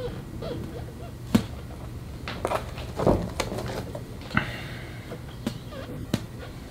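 Windshield-repair adhesive disc being pried and peeled off the glass with a single-edge razor blade: a series of sharp clicks and taps from the metal blade and disc, with a short scrape as the disc comes away a little past halfway.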